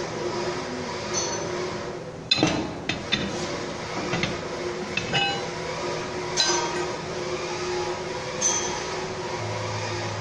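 Steel parts clinking and knocking as a flat steel stationary blade and tools are handled against the machine's cutting chamber: several sharp metallic clinks, irregularly spaced, the loudest a little over two seconds in. A steady hum runs underneath.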